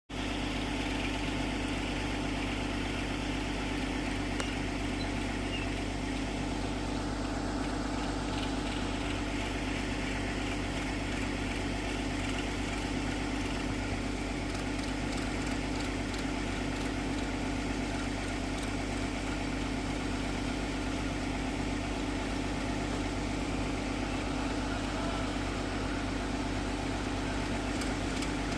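Hyundai Robex 210-7 excavator's diesel engine running steadily at an even pace, with no revving or sudden changes.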